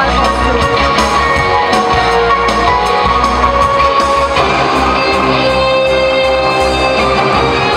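Loud recorded music with guitar and a steady beat, played over loudspeakers for a dance.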